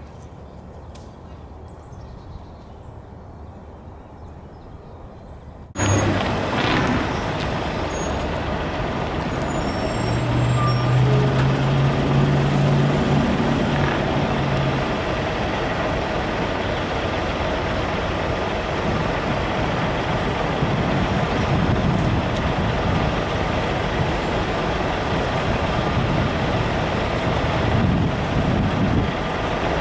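Road traffic noise: vehicles and a heavy truck's engine running, loud and steady, starting suddenly about six seconds in, with a deep engine drone for a few seconds in the middle. Before that, quiet open-air background.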